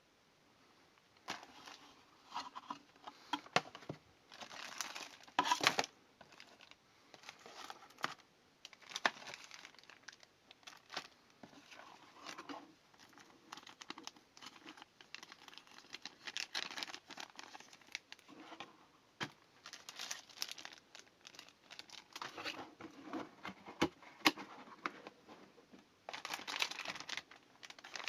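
Packaging being handled: plastic and cardboard crinkling and rustling in irregular bursts, with sharp clicks and taps in between, busier near the end.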